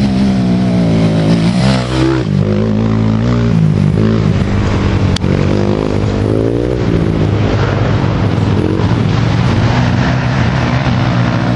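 Youth racing ATV (quad) engines revving up and down as the quads ride the dirt trail, the pitch rising and falling again and again with throttle and shifts. At times more than one engine is heard at once. A single sharp click comes about five seconds in.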